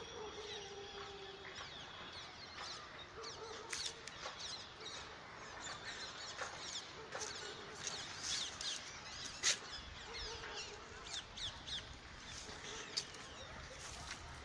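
Many small birds chirping and twittering in quick, overlapping short calls, with a sharp click standing out about nine and a half seconds in.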